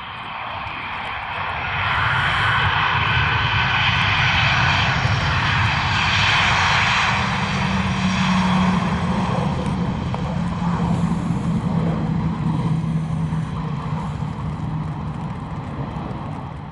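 Airbus A319 jet engines running loud during the landing rollout, swelling about two seconds in and slowly fading as the airliner slows. A steady low hum sits under the noise in the middle of the roll.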